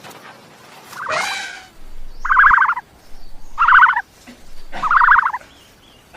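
A farm bird calls three times in a row, each call a rapid rattle about half a second long. A different, shorter cry comes about a second in.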